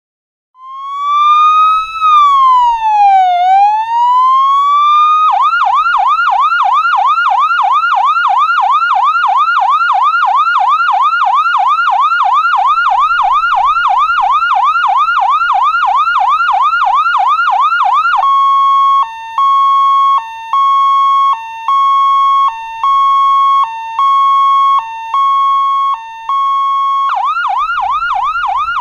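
Emergency-vehicle siren cycling through its patterns: it starts about half a second in with one slow wail up and down, switches to a fast yelp of about three sweeps a second, then to a steady tone broken by short dips, and goes back to the fast yelp near the end.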